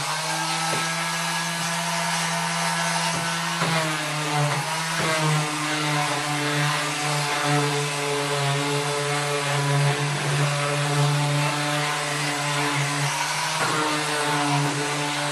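Electric random orbital sander running steadily on wooden boards, a constant motor hum with a gritty sanding hiss. Its pitch dips briefly about four and five seconds in and again near the end.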